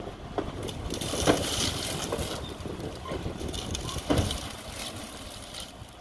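Earthmoving machinery working soil and rock: a low engine rumble with crunching and several sharp knocks, fading toward the end.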